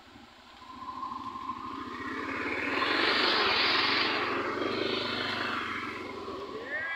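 Motor scooter passing close by on a gravel road, its engine and tyres growing louder and then fading away.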